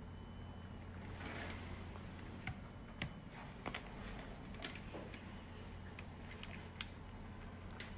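Scattered light clicks and taps of small plastic devices being handled on a wooden tabletop, as a USB cable is plugged into a tablet and a handheld colposcope camera is picked up and connected, over a low steady hum.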